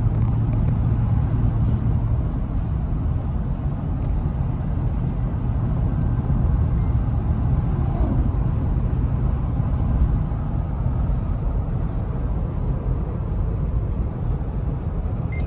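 Steady low rumble of road and tyre noise heard inside the cabin of a moving car, with a low hum over the first couple of seconds.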